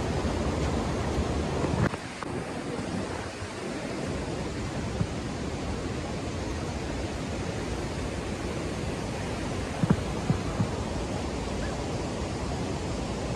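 Steady rushing of the Yamuna river's flowing water, with some wind on the microphone. A few short knocks come about ten seconds in.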